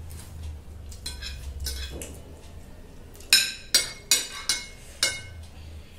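Metal spoons and forks clinking and scraping against glass plates as chowmein noodles are scooped up. Soft clinks at first, then a run of about five sharp, ringing clinks in the second half.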